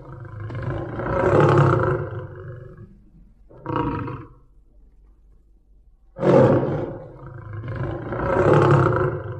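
Big cat roaring: a long roar, a short grunt about three and a half seconds in, then a second long roar about six seconds in that closely matches the first.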